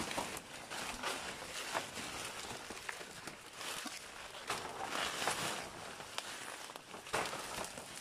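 Footsteps and rustling of someone pushing through dense undergrowth: dry leaves crunching underfoot and leaves and twigs brushing past close to the microphone, making an irregular crackling.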